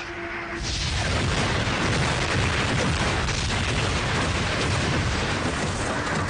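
Film action sound effect: a loud, sustained rumbling roar that swells up about a second in and then holds steady.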